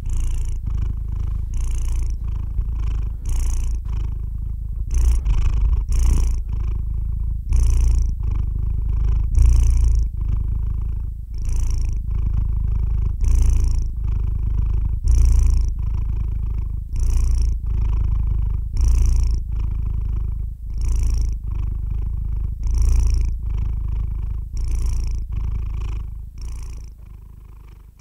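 Long-haired calico cat purring steadily in its sleep, a low rumble that swells with each breath about every two seconds, fading out near the end.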